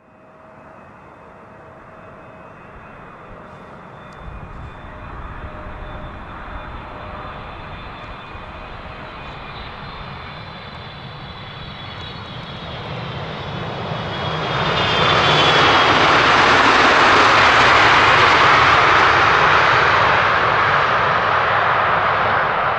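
Jet airliner on final approach, its engines growing steadily louder with a high steady whine, then a loud roar about halfway through as it passes close by, easing slightly near the end.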